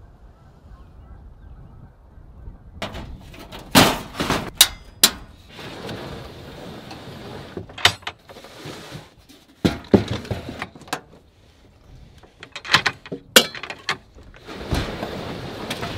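A low rumble of wind on the microphone for the first few seconds, then irregular knocks, clunks and scraping as cookware and a plywood slide-out drawer are handled in the back of a pickup truck.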